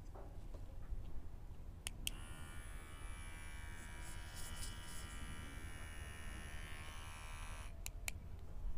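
HTC cordless hair trimmer switched on with a click of its push button about two seconds in, its motor and cutting blade buzzing steadily for about six seconds, then clicked off near the end.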